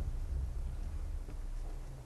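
Low, steady rumble on the microphone, with nothing clear above it.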